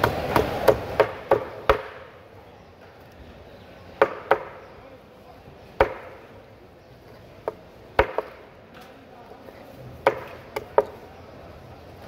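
A large knife chopping a whole ruby fish on a wooden chopping block, each stroke a sharp knock. A quick run of about six chops in the first two seconds, then single or paired chops every second or two.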